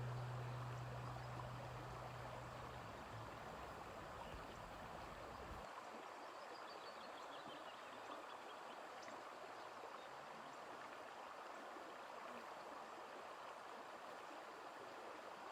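Faint, steady rush of running water, with the last low guitar note dying away over the first few seconds. About six seconds in, a short falling series of high chirps.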